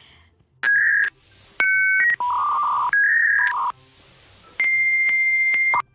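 A run of loud electronic beeps at changing pitches, like phone keypad tones, some sounding two notes at once. The run ends with one long high beep of about a second.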